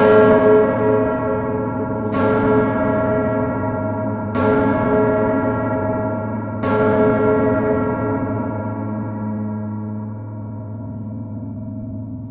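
A deep, bell-like metallic tone struck four times, about every two seconds. Each strike rings on long enough to overlap the next, and the sound fades slowly after the last one.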